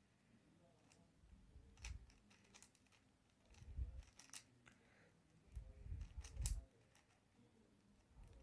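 5x5 Rubik's cube being turned by hand: short bursts of plastic layers clicking and clacking, about two seconds in, around four seconds in and again around six seconds in, with soft thumps of the cube in the hands.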